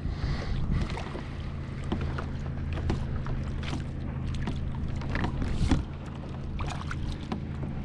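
Handling noise aboard a plastic kayak on open water: scattered knocks and clicks against the hull and gear over a steady low hum, with a brief hiss at the start.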